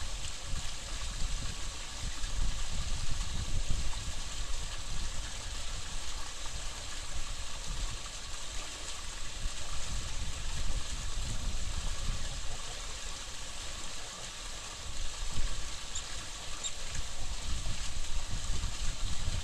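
Steady hiss of flowing stream water, with an uneven low rumble underneath.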